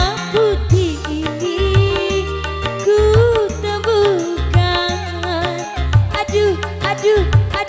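Live dangdut band playing an instrumental passage: hand drums and bass keep a bouncing beat under a lead melody that bends up and down in pitch.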